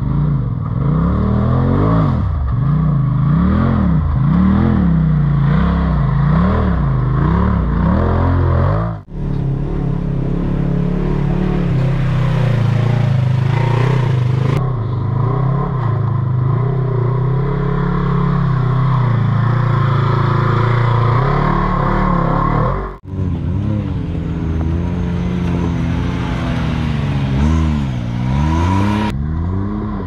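Off-road vehicle engine revving up and down about once a second while crawling over rock, then pulling at steadier revs. The sound breaks off abruptly twice.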